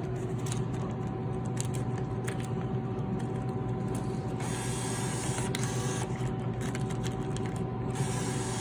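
Steady electrical hum of vending machines, with scattered light clicks and handling noises; a hiss comes in about four and a half seconds in and again near the end.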